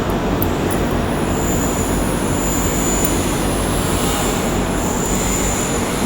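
Steady loud rumble of running machinery or an engine, with a faint high whine that swells and fades.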